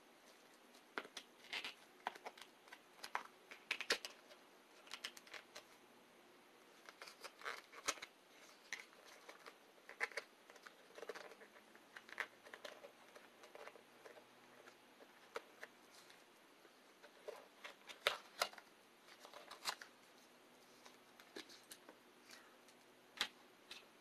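Hands opening a small perfume bottle's packaging: scattered light clicks, scrapes and rustles as the bottle and its wrapping are worked free.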